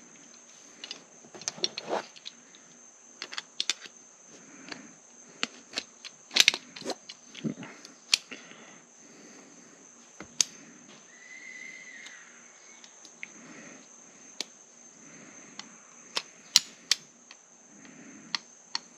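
Plastic and metal seatbelt height-adjuster parts being handled and slid together by hand: scattered clicks and clacks, a few of them sharp.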